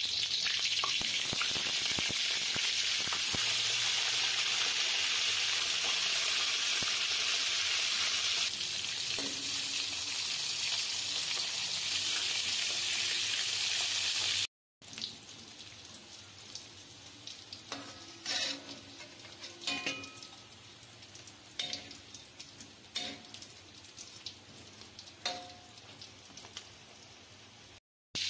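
Pieces of fish deep-frying in hot oil in a wok, a loud, steady sizzle. About halfway through the sizzle cuts off, and a quieter stretch follows with scattered clinks and knocks.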